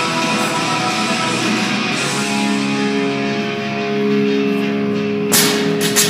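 Rock music with guitar playing steadily. Near the end, two sharp knocks sound over it.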